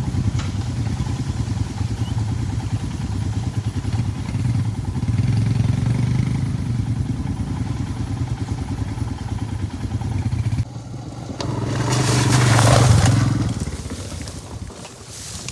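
Motorcycle engine running under way with a steady pulsing note. About ten seconds in the sound drops abruptly, then the engine returns while a rushing noise swells and fades.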